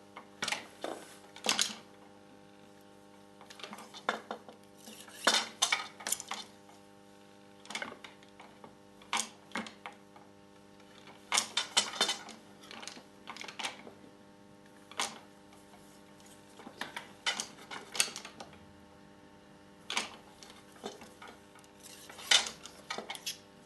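Light, irregular metallic clicks and small clusters of clinks as warp threads are drawn through the slots of a loom reed, a few at a time. A faint steady hum runs underneath.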